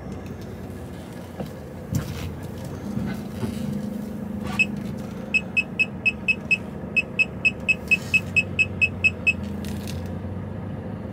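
HGV diesel engine running with a steady drone as the lorry manoeuvres. Over it, an electronic warning beeper sounds a rapid string of short high beeps, about four or five a second, for roughly five seconds from around the middle.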